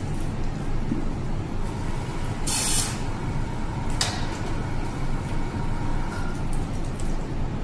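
Hands working the tubing and fittings of a benchtop glass bioreactor. Over a steady background rumble there is a short hiss about two and a half seconds in, and a sharp click at about four seconds.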